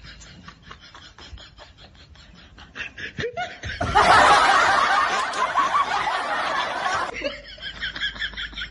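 Snickering laughter, broken about four seconds in by a loud burst of noise that lasts about three seconds and cuts off suddenly.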